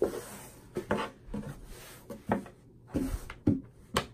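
Hands smoothing and patting sheer, slinky fabric flat on a cutting table: soft rustling of the cloth with about six light knocks and taps on the tabletop.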